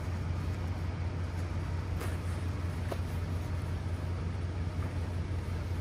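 Steady low mechanical hum, like a running engine, with a couple of faint clicks about two and three seconds in.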